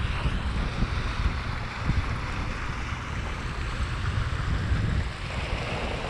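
Wind buffeting the microphone on a moving sailboat, an irregular low rumble, over a steady hiss of water along the hull.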